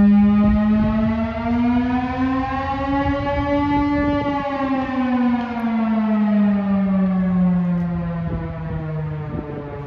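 Chrysler air raid siren, the V8-engine-driven Chrysler Bell Victory type, sounding a low wail. Its pitch rises slightly over the first four seconds, then glides steadily lower.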